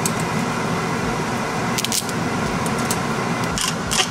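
Pot of water boiling steadily with broken spaghetti just dropped in. Near the end, a hand grinder clicks several times over the pot.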